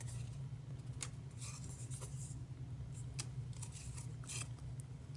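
Small cardstock ephemera pieces and tags being handled and shuffled in the hands: faint paper rustling with scattered light taps, over a low steady hum.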